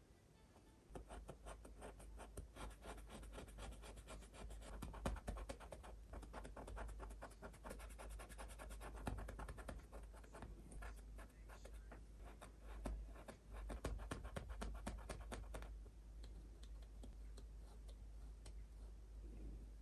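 Paintbrush with oil paint stroking across canvas in rapid, short, scratchy strokes, which stop about sixteen seconds in. A steady low hum runs underneath.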